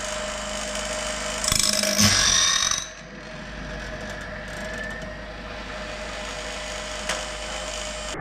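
Woodland Mills bandsaw blade sharpener running with a steady motor hum. About a second and a half in, a louder, harsher high-pitched grinding lasts just over a second as the grinding wheel works a tooth, and a single sharp click comes about a second before the end.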